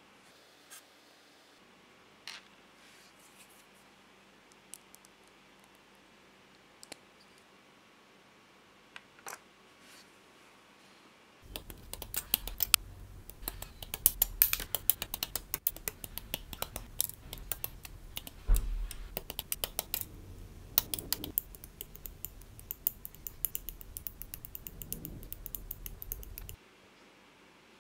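Sparse small clicks of hard plastic model-kit parts being handled and pressed together. About eleven seconds in, a rapid run of sharp snips and clicks begins as parts are cut off the plastic runners and trimmed with sprue cutters, over a low rumble and one heavier thump, stopping abruptly near the end.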